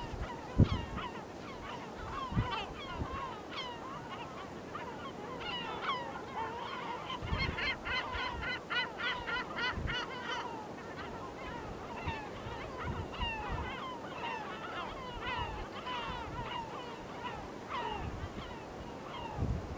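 Yellow-legged gull colony calling: many overlapping gull calls throughout, with a rapid run of repeated calls from one nearer bird for a few seconds around the middle. A few low thumps now and then.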